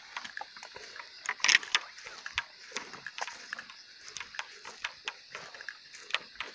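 Footsteps and rustling through grass and brush, an irregular run of short clicks and swishes with a louder one about a second and a half in, over a steady chorus of crickets.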